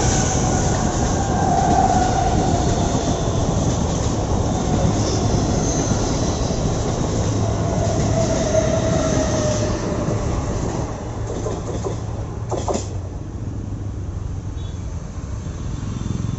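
Mumbai suburban EMU local train running past close by, its coaches rumbling over the track with a faint wheel squeal that slowly falls in pitch. The noise eases after about ten seconds as the train moves away.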